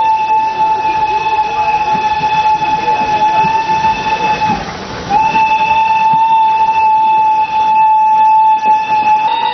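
Narrow-gauge locomotive's whistle sounding two long, steady blasts with a short break between them, over the rumble of the train coming out of a tunnel.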